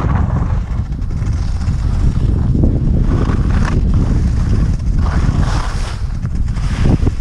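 Wind rumbling on the microphone of a moving skier's camera, with skis scraping and hissing over firm, powderless snow in several surges, loudest a third of the way in and again past the middle.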